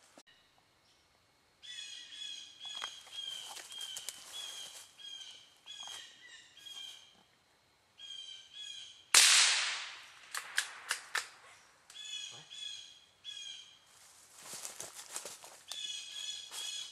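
A bird gives harsh calls over and over, each about half a second long, in hardwood woods. About nine seconds in, a single gunshot cracks out and echoes away, the loudest sound, followed by a few quick clicks.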